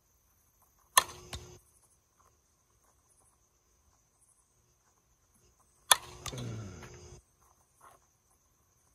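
Two softball bat hits about five seconds apart, each a sharp crack as the bat meets a tossed ball, followed by a quick second click. After the second hit there is about a second of sound falling in pitch. Crickets chirp steadily throughout as a high, continuous tone.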